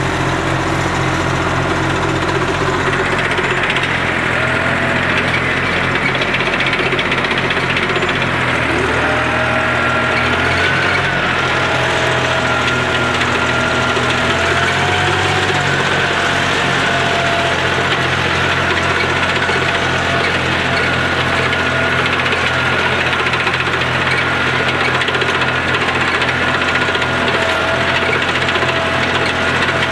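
Tractor diesel engine running steadily while driving a Maschio BC 160 flail shredder from the PTO. The engine note shifts about eight seconds in, and a higher wavering whine runs above the engine after that.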